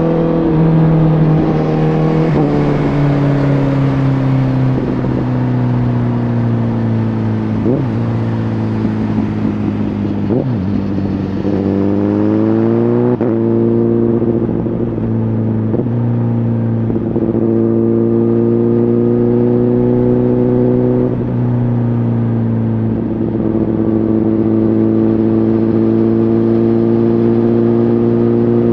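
A Honda CBR1000RR Fireblade's inline-four engine running through an aftermarket Shark Factory exhaust while riding at moderate revs. The engine note sinks slowly over the first several seconds, rises briefly about twelve seconds in, then holds fairly steady with small changes in pitch.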